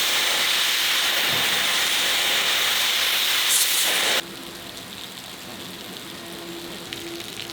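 Oxy-acetylene cutting torch hissing steadily as it cuts through the turret's steel armour around the vision slit, cutting off suddenly about four seconds in.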